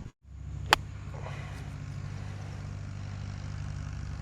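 A single sharp click of a golf club striking the ball on a short wedge shot, about three-quarters of a second in, over a steady low motor-like hum.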